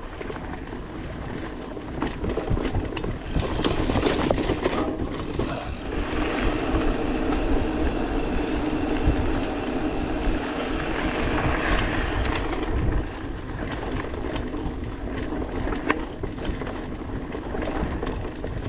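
Mountain bike riding noise: wind buffeting the microphone and knobbly tyres rolling over dirt and gravel, with scattered rattles and clicks from the bike. A steadier tyre hum runs for a stretch in the middle and drops away about two-thirds of the way through.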